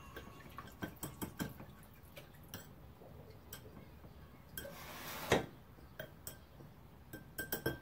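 A small spoon stirring a thin liquid in a small glass bowl, clinking irregularly against the glass, with a louder scrape about five seconds in.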